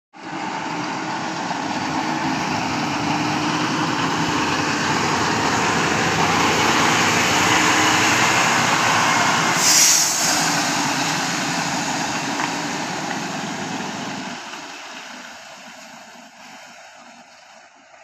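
Diesel engine of a Daewoo truck carrying a SANY concrete boom pump, running loudly as the truck drives up and past, with a short hiss about halfway through. The engine sound drops away sharply a few seconds before the end and stays low.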